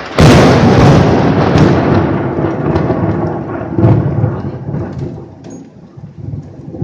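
A close thunderclap: a sudden loud crack just after the start, then a deep rumble that swells again about four seconds in and slowly dies away, with rain falling underneath.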